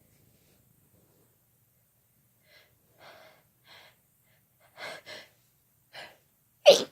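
A person's short, gasping in-breaths building up to a sneeze, with the loud sneeze bursting out right at the end.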